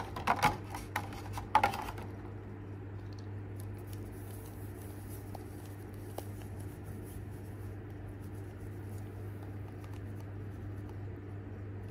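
Clear plastic packaging tray crackling and clicking as it is handled, in a cluster of sharp clicks over the first two seconds. After that only a steady low hum with a few faint ticks.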